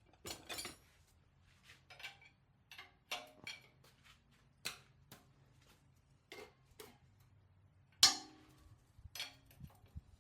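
Scattered metal clicks and clinks of sockets and hand tools being handled on the diesel engine during injector removal, with one sharper clank about eight seconds in.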